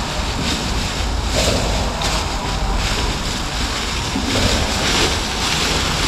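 Footsteps shuffling through dry fallen leaves, a rustle about every three-quarters of a second, with wind buffeting the microphone.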